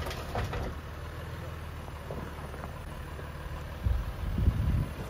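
Jeep Gladiator's 3.0-litre EcoDiesel V6 running steadily at low revs as the truck crawls over a dirt hump in four-low with the axles locked. A louder low rumble comes about four seconds in.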